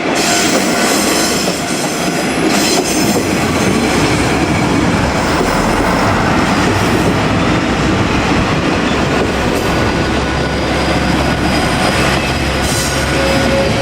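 JR Kyushu Ibusuki no Tamatebako, a KiHa 47-series diesel railcar train, passing close by at steady loudness, its wheels running over the rails.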